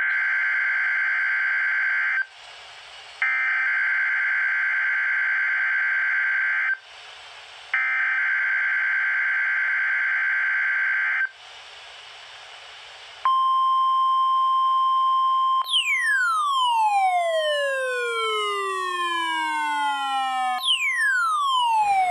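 NOAA Weather Radio weekly test signal: three bursts of SAME digital data tones, each a few seconds long, separated by about a second of hiss. About 13 seconds in, the steady 1050 Hz warning alarm tone starts. From about 15 seconds in, a series of falling whistling sweeps slides down over it, and a second set starts near the end.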